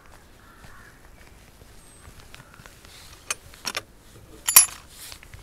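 Metal latch of a farm gate being worked by hand: a few sharp clicks, then a loud metallic clank with a brief high ring about four and a half seconds in.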